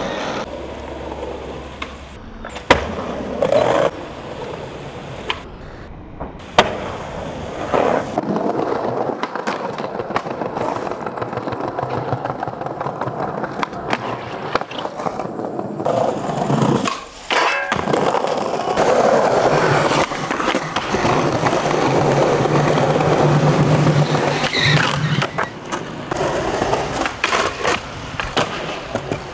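Skateboard wheels rolling over asphalt and concrete, broken by sharp wooden clacks of the board popping and landing as tricks are done; two of the clacks stand out loudest a few seconds in.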